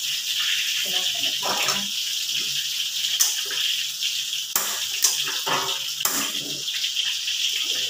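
Food frying in hot oil in a wok: a steady sizzle. A metal spatula scrapes and clinks against the wok a few times, with the sharpest strikes from about three to six seconds in.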